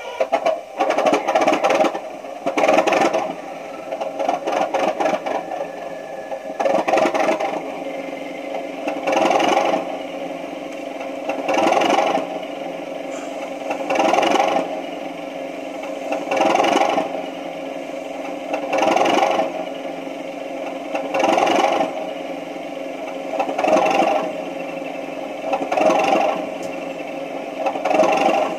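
Sound decoder in a Heljan O gauge Class 37 model, playing the recorded English Electric diesel engine through the model's loudspeaker: uneven bursts of starting in the first few seconds, then the engine idling with a swell in level about every two and a half seconds.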